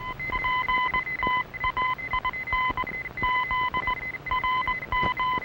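Electronic radio-signal sound effect: a steady high tone with beeps keyed on and off over it in a Morse-code-like rhythm of short and long beeps, signalling that a transmission contact is being established.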